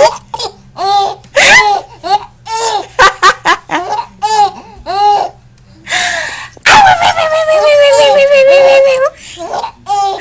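A baby with hiccups giggling in short, high-pitched bursts, about two a second. About seven seconds in comes one long squeal whose pitch falls.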